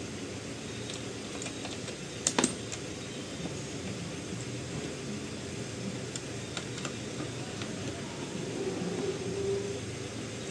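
Small metal clinks and ticks from a screwdriver and screws working in an office chair's steel seat mechanism, the loudest a sharp double clink about two seconds in, with a few fainter ticks later, over steady background noise.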